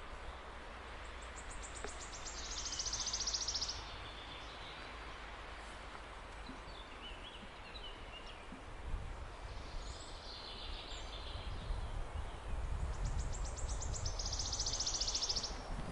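Wigeon calling: two loud, high calls, each opening with a quick run of clicks, about three seconds in and again near the end, with softer calls in between. A steady low rumble lies under it and gets stronger halfway through.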